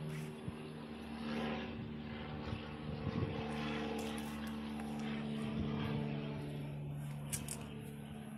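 A steady engine or motor hum holding several even tones, with a few light clicks near the end.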